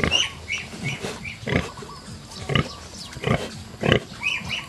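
Nursing sow giving short, repeated low grunts, about one a second, while piglets suckle, with the piglets' small high squeaks in between.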